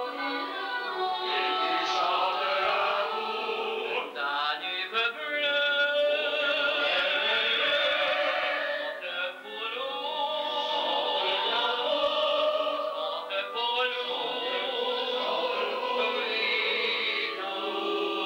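Operatic singing with a wide vibrato over a musical accompaniment, in a stage operetta.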